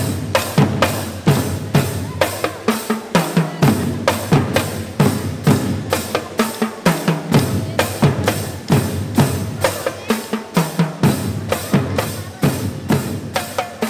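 Snare and bass drums playing a steady, driving beat, about three to four strokes a second.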